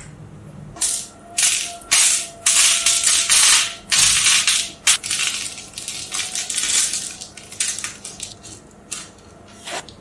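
Small pebbles rattling and clattering as they are dropped and pressed into a ring of steel magnet balls: a quick series of dry rattles, louder in the first half and softer toward the end.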